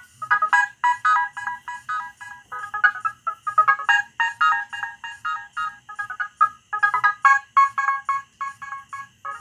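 Nokia 6010 mobile phone playing one of its ringtones through its small speaker: a fast melody of short, clipped electronic notes, several a second.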